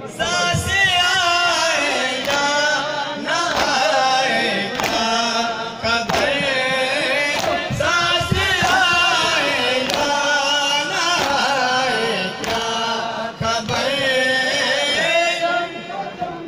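Men's voices chanting a Muharram mourning lament (noha) in unison. Sharp slaps of hands striking bare chests in matam keep a steady beat through it.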